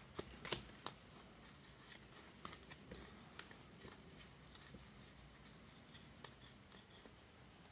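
Faint clicks and light rustles of baseball trading cards being flipped through by hand, with one sharper card snap about half a second in.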